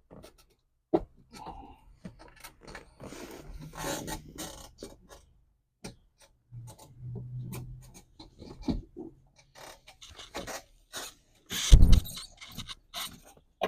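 Scraping, rubbing and clicking as a replacement fuel pump assembly is worked down through the opening into the fuel tank, with a loud knock about twelve seconds in.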